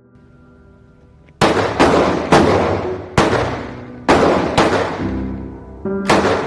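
Seven semi-automatic rifle shots from a Warsport LVOA AR-15 in 5.56/.223, fired at an uneven pace starting about a second and a half in. Each crack rings out and decays, over background music with steady tones.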